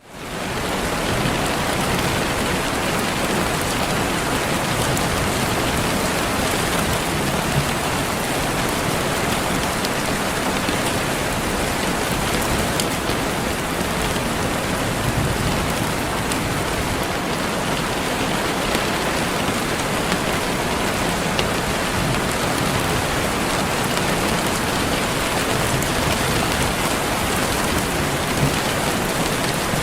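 Steady rain falling on a surface, an even hiss with scattered drop ticks, rising quickly from silence at the very start.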